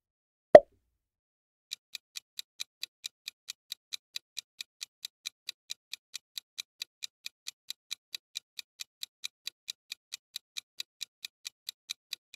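Quiz countdown-timer sound effect: a short pop as the next picture appears, then clock-like ticking at a steady four to five ticks a second, starting about two seconds in and running for about ten seconds.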